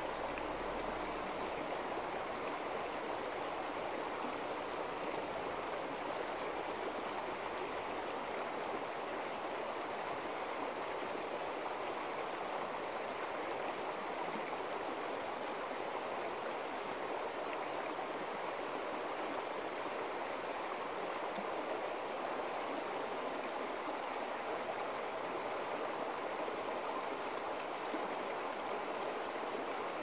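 Shallow river flowing over gravel and stones: a steady, even rush of running water.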